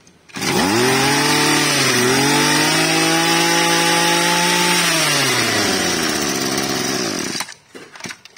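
Hitachi 22cc two-stroke brush cutter engine starting and being revved. It rises in pitch, dips briefly about two seconds in, and is held at high revs. Around five seconds in it drops back to idle, then cuts off suddenly after about seven seconds.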